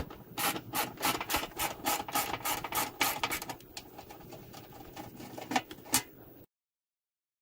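Socket ratchet wrench turning a bolt on a car's fender or door hinge: a run of quick rasping ratchet strokes, about three to four a second, then fainter working noise with two sharp clicks. The sound cuts off abruptly near the end.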